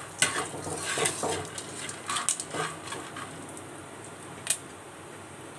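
Popcorn kernels being stirred in hot oil in a steel wok with a metal spatula: scraping and clicks against the pan over the first few seconds, under a faint steady sizzle. One sharp crack comes about four and a half seconds in, as the kernels begin to pop.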